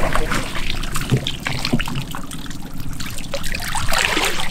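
Water trickling and splashing, with scattered light knocks, as from a wet fish trap or catch being handled over the water.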